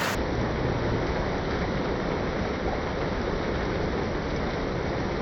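Heavy rain pouring steadily in a thunderstorm, an even hiss.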